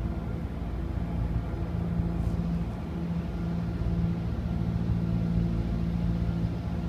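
Engine idling: a steady low hum that does not change.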